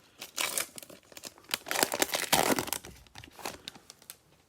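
A trading card pack's wrapper crinkling and tearing as it is ripped open, in uneven bursts with the longest about halfway through.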